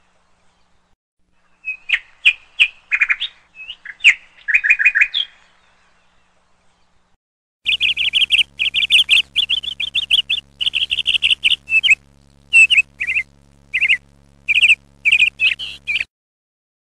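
Small birds chirping in quick bursts of short, high notes, a pause of about two seconds, then a denser run of chirps over a faint steady low hum that stops just before the end.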